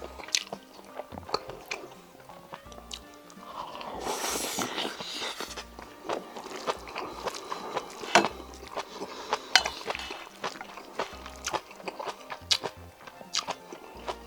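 Close-miked eating of octopus bibimbap: chewing with many sharp mouth and lip clicks, and a longer rustling, scraping stretch about four seconds in. Quiet background music plays underneath.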